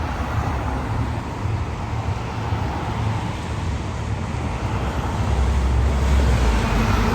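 Outdoor street traffic noise: a steady rumble of passing cars that swells louder near the end as a vehicle goes by.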